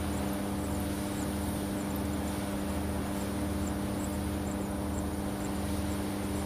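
Cable production machinery running with a steady hum and a low throb that pulses a little more than once a second.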